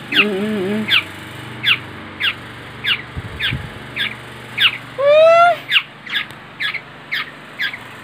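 A four-week-old black-naped oriole fledgling calling over and over in short, downward-sliding notes, about two a second. One louder, longer note comes about five seconds in.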